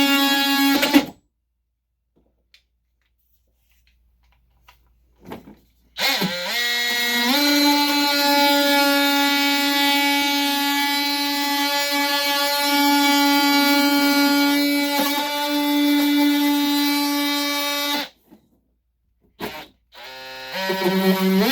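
Handheld power tool cutting the wall opening for a larger switch, its motor running with a steady, high whine. It stops for about five seconds early on and then spins up again, rising in pitch. It cuts out near the end and starts up once more, climbing in pitch.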